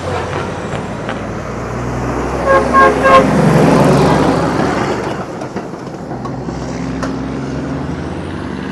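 Heavy diesel truck engine running, with a vehicle horn sounding a quick string of short toots about two and a half seconds in as the engine noise swells.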